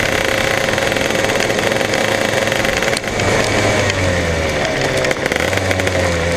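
125 cc KZ shifter kart's two-stroke engine running at steady revs, then about three seconds in the revs fall away in two slow downward slides as the kart slows and rolls into the paddock.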